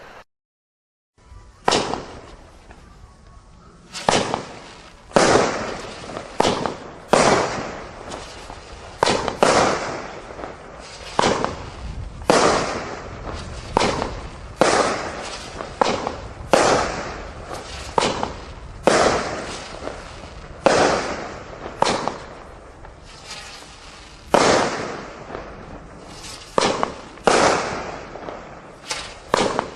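Firework cake bursting in steady succession: sharp bangs about once a second, each followed by a short echoing tail. The sound drops out completely for about a second near the start.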